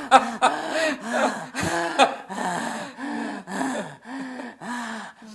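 A woman laughing in short breathy gasps, about two a second, growing fainter toward the end.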